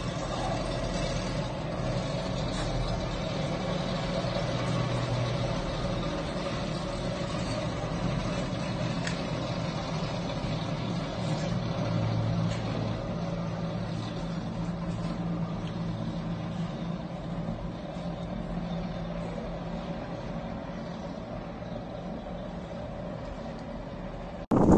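Engines of military vehicles driving along a road, a steady low rumble that eases off a little toward the end.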